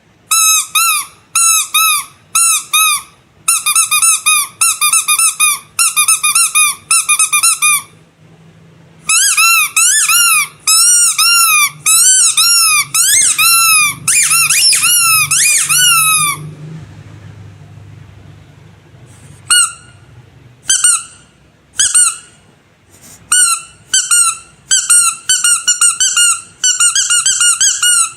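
Rubber squeaky animal toys squeezed over and over in quick runs of high squeaks, each squeak rising and then falling in pitch. There are a couple of short pauses, and a few slower single squeaks about two-thirds of the way in, before fast runs resume.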